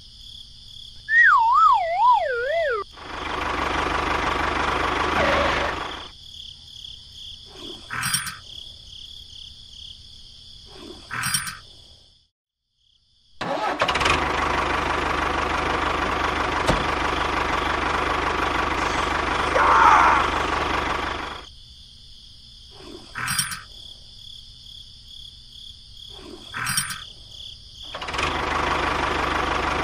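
A tractor engine starting and running in stretches, cutting out in between. A wavering whistle falls in pitch about a second in.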